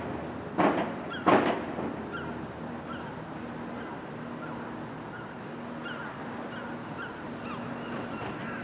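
Two short, loud honking bird calls less than a second apart, about a second in, over the steady low hum of an electric multiple-unit train at the station.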